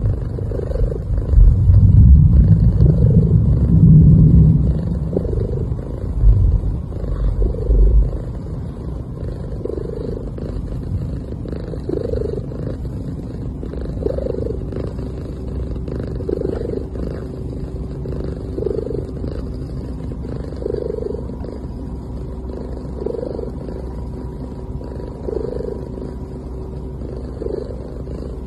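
Sleeping cat purring strongly for the first several seconds, then settling into soft, rhythmic breathing sounds, about one every two seconds.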